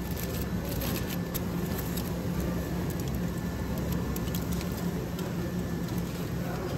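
Aluminium foil wrapper crinkling and crackling as it is pulled open by hand, in quick clusters through the first five seconds, over a steady low hum.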